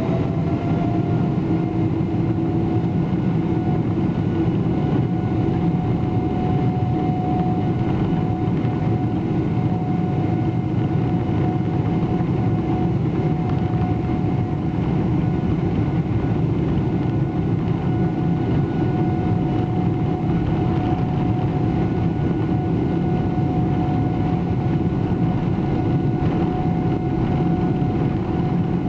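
Boeing 777-300ER's GE90 turbofan engines heard from inside the cabin while the jet taxis at low thrust: a steady fan whine over a dense low rumble. The whine finishes rising in pitch about a second in and then holds.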